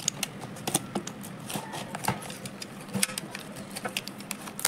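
Box cutter blade scraping and slitting through the packing tape and plastic wrap of a tightly packed parcel, a quick irregular run of small clicks and scratches.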